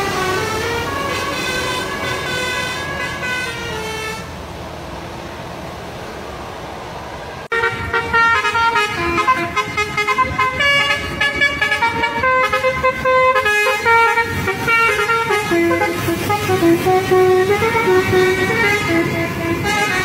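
Basuri V3 multi-tone telolet bus horn playing its melody of short stepping notes. It stops about four seconds in, leaving quieter vehicle noise, then starts again abruptly about seven and a half seconds in and plays its tune on.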